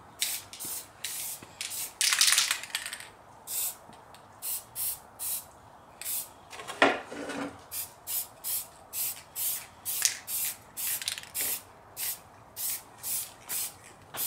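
Aerosol spray can of silver paint hissing in many short bursts, about two a second, with one longer burst about two seconds in; light misting coats. A single brief, louder knock comes about seven seconds in.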